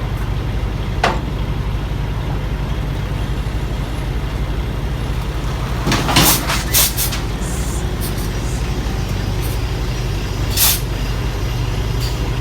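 Semi-truck diesel engine idling steadily, with a few short hisses of compressed air from the air brake system about six to seven seconds in and again near eleven seconds.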